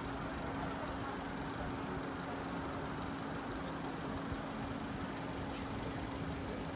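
Steady urban road traffic noise with a constant hum running under it.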